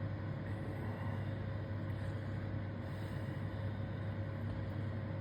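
Idling vehicle engine: a steady low rumble with a faint constant hum.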